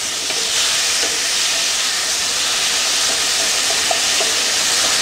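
Anchovies and garlic sizzling in hot olive oil in a frying pan while a wooden spatula stirs them: a steady hiss with a few faint pops. The anchovies are being browned over a slightly raised flame.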